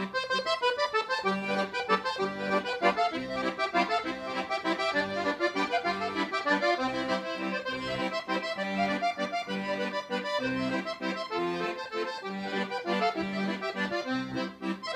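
Instrumental background music: a melody of sustained notes over a regular bass pattern.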